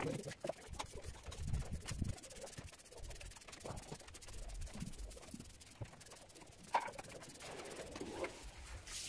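Rubbing and scraping of a hand-held sponge worked over a rough cement floor, with scattered light taps and one sharper tap about seven seconds in.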